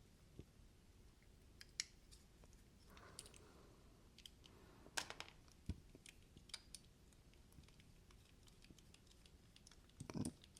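Faint, scattered clicks and a brief light scrape from small parts of a disassembled folding knife being handled and checked, with near silence between.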